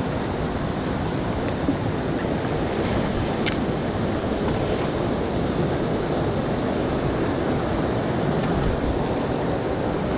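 River rapids rushing steadily, an even, unbroken water noise, with one faint click about three and a half seconds in.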